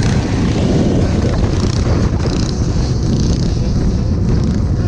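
Steady loud rumble of motor vehicle engines with wind buffeting the microphone.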